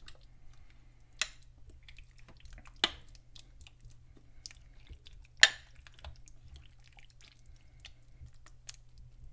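Metal spoon stirring thick rabbit stew in a slow-cooker crock: soft wet squelching, with scattered clicks and three sharp clinks of the spoon against the crock, the loudest about five and a half seconds in.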